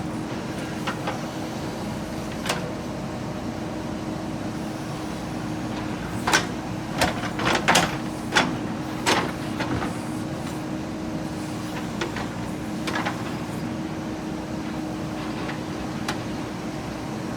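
JCB 3DX Super backhoe loader's diesel engine running steadily, with a run of sharp knocks and clanks about six to ten seconds in and a few single ones later.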